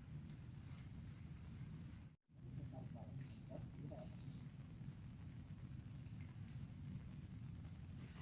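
Insects trilling steadily in a high, fast-pulsing chorus over a low background rumble; the sound drops out completely for an instant about two seconds in.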